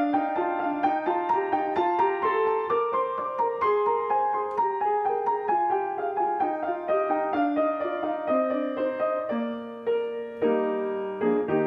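Piano music: a steady run of notes, with a brief pause a little before ten seconds in.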